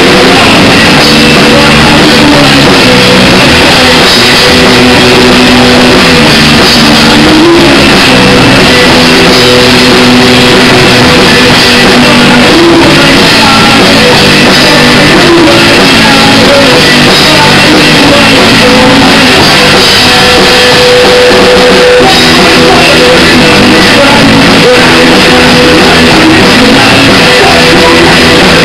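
Live rock band playing loud, with electric guitars and a drum kit going without a break.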